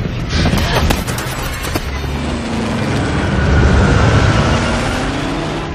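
Film sound of a C-130 cargo plane going down with both engines out of thrust: rattling and sharp knocks for the first couple of seconds, then a heavy low rumble with a droning whine that sinks and then climbs in pitch.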